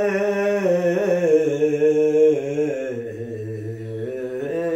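A man singing a Sufi kalam unaccompanied, holding one long drawn-out note. The note wavers, sinks to a low pitch about three seconds in, and climbs back up near the end.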